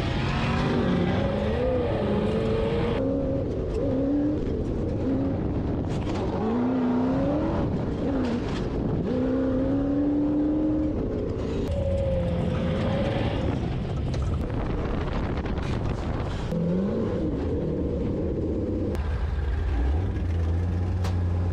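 Sand rail engine of about 800 horsepower running hard under full throttle, its pitch repeatedly climbing and dropping back as it accelerates and shifts. It settles to a lower, steadier note near the end.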